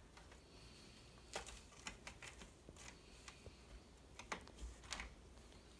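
Faint, irregular scratching and scuffing of a cat's claws and paws on a carpeted cat-tree platform and sisal post as it spins after its tail, with a few louder scrapes about a second and a half in and again between four and five seconds in.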